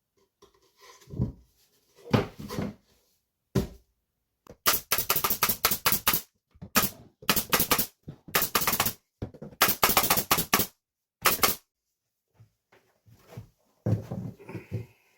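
A power screwdriver rattles in five short bursts, each under two seconds, as it drives screws to fix gypsum board. A few duller knocks come first.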